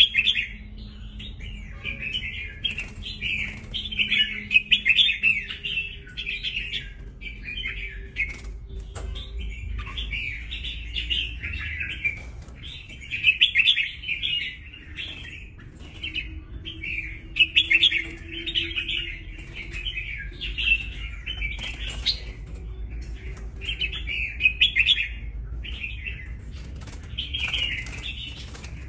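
Wild-caught red-whiskered bulbul singing in short, repeated bursts of chirpy phrases. A few sharp clicks fall between the phrases.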